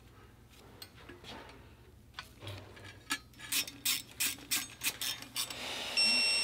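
A hand ratchet clicks in quick strokes, about four a second, as a bolt on the oil pickup of a Subaru EJ engine block is run down. Near the end a digital torque wrench gives a steady high beep, its signal that the bolt has reached the set torque.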